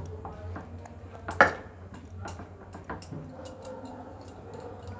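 Steel glass pressing and tapping on a plate while mashing boiled sweet potato: scattered light clicks and taps, with one louder knock about a second and a half in.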